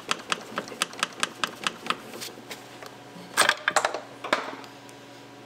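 Hand ratchet clicking at a steady pace, about five clicks a second, as a fastener on the Duramax's upper coolant pipe is worked loose. It is followed a little past halfway by a short burst of louder metallic knocks and clatter.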